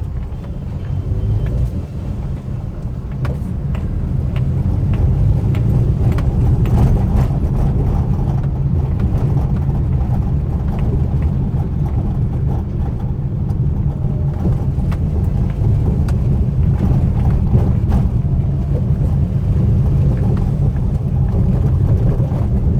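Maruti WagonR K-series heard from inside the cabin while driving over rough paver blocks: a steady low road rumble with many scattered light knocks and rattles from the front end, as if something is loose. The knocking is typical of play in the front brake caliper pins, with a seat rattle mixed in.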